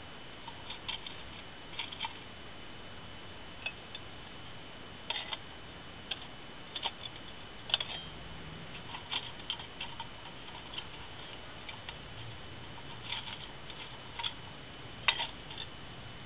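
Scattered light clicks and taps of dry sticks and metal as twigs and larger pieces of wood are set into a metal Swiss Army volcano stove, at irregular intervals.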